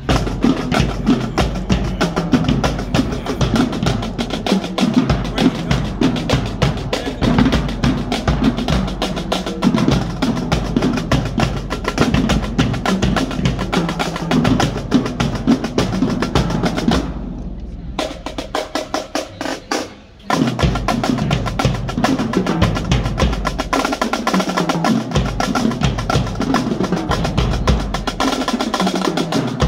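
Marching drumline playing a cadence on Pearl snare drums, tenor drums and bass drums: fast, dense snare strokes over the drum pattern. About 17 seconds in, the snares drop out for a few seconds with only scattered hits and a brief stop, then the full line comes back in.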